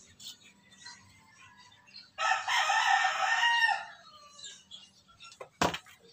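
A rooster crowing once, a single call of about a second and a half in the middle. A single sharp thump follows near the end.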